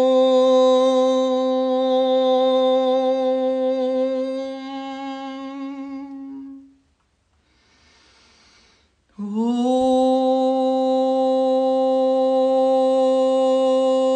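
A woman chanting a long, steady "Om" that fades out about six seconds in, then a quiet intake of breath and another long "Om" beginning about nine seconds in, sliding up slightly into its held note.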